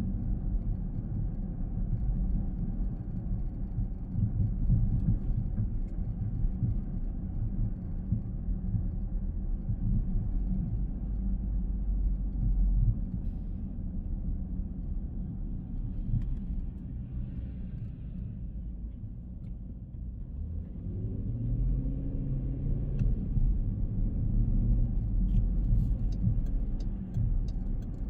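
Car on the move: a steady low rumble of engine and road. About three-quarters of the way through, the engine note rises as the car picks up speed, and a run of faint quick ticks follows near the end.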